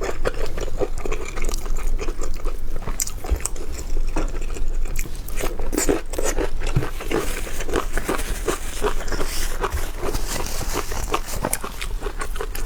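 A person chewing and biting food, with crunching.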